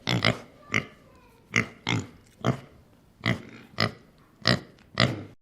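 Pig grunting: a string of short, separate grunts, roughly two a second.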